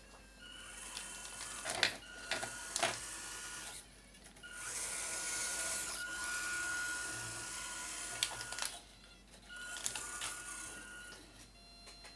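Electric drive motor and gears of a 1:14 RC Land Rover whirring with a thin whine as the car runs a newly fitted drive, in three runs of a few seconds each. A couple of sharp clicks come about two and three seconds in.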